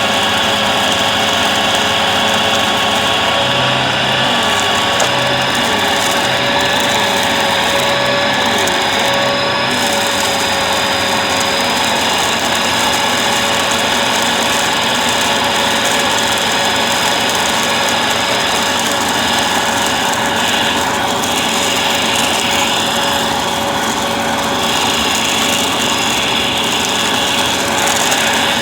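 Bissell upright vacuum cleaner running steadily, a continuous motor whine with several steady tones.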